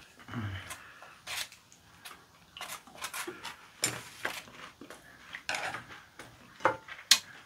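Eating sounds at a table: irregular light clicks of chopsticks against a ceramic bowl and foam trays, and scattered chewing of raw squid sashimi.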